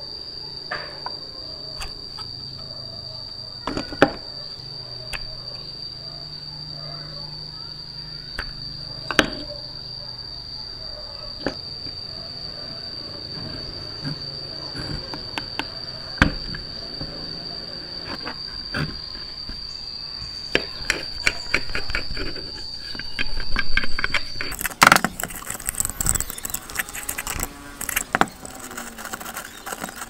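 Rusty metal parts of a vintage hand-cranked coffee grinder clicking and knocking as it is handled and taken apart, over a steady high-pitched tone. About 25 seconds in the tone stops, and a brush scrubs over the grinder's metal bowl and crank in a quick run of scratchy strokes.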